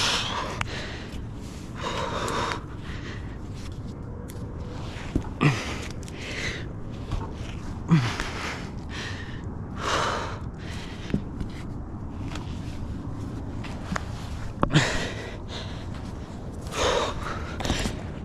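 A tree climber breathing hard with the effort of climbing: loud gasping breaths every couple of seconds, with a few short sharp knocks or creaks in between.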